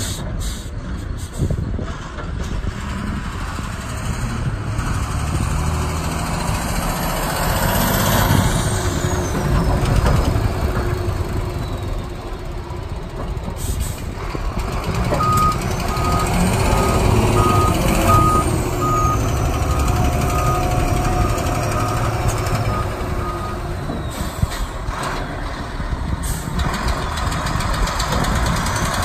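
A 2008 Volvo A25E articulated dump truck's diesel engine running as the truck drives, its pitch rising and falling. About halfway through, its backup alarm beeps steadily for about eight seconds, the sign that the truck is reversing.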